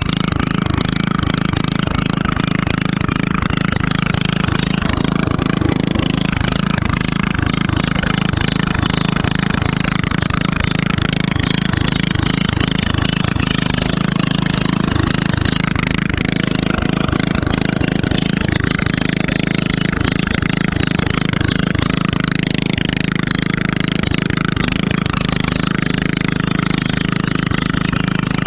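Briggs & Stratton engine on a Sears garden tractor running steadily while the tractor is driven. It exhausts through a short makeshift pipe, under the 12 inches Briggs asks for, which leaves it loud.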